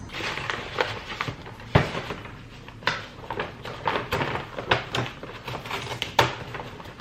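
Things being handled and set down indoors: an irregular run of knocks, clicks and light clatter, like cupboard doors and belongings being moved. The sharpest knocks come about two seconds in and again about six seconds in.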